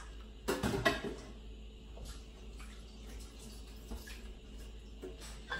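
Pot of water bubbling at the boil on a gas burner, blanching raw pork pieces. It is louder for a moment about half a second in.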